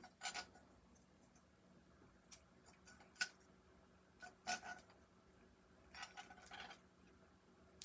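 Faint, scattered clicks and light metal taps of a Mitutoyo digital caliper being handled, its sliding jaw moved and closed on a hollow aluminum bench dog shaft. The clearest taps come about three and four and a half seconds in, with a few more around six seconds.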